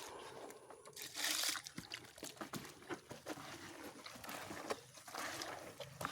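Wet poultry feed mash of chopped leaves, fruit and commercial feed being mixed with water: sloshing and dribbling with small wet clicks, and a louder burst about a second in.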